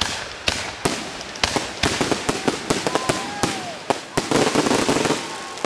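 Fireworks display: a quick series of sharp bangs and crackles, building into a dense barrage of reports near the end that then dies away.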